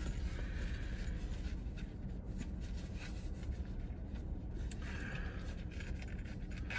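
Faint rubbing and scratching of a zippered hard sunglasses case being handled and unzipped, in two short spells, over a steady low hum.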